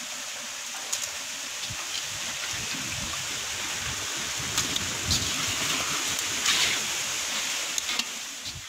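Raw chicken pieces going into hot oil and tomato-chilli masala in a large metal pot, sizzling steadily, with a few light clicks and knocks.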